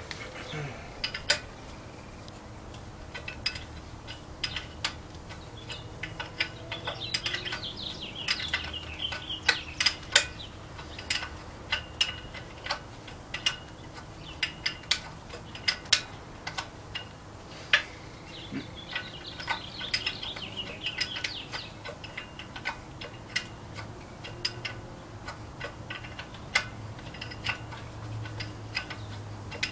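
Hand ratchet wrench clicking in irregular short runs, with sharp metallic clicks, as the manifold nuts on an engine block are turned off.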